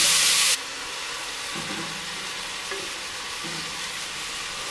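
Diced bacon and onions sizzling as they fry in a hot cast-iron Dutch oven, stirred with a wooden spatula. The loud sizzle drops suddenly about half a second in to a quieter, steady sizzle.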